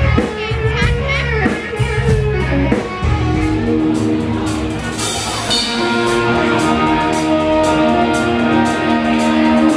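Live rock band playing: electric guitars and bass over a drum kit. From about four seconds in the guitars hold long ringing chords, with a cymbal crash about five seconds in.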